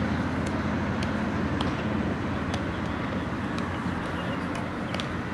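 Steady outdoor background noise, a low rumble and hiss like distant traffic or wind on the microphone, with faint ticks about once a second.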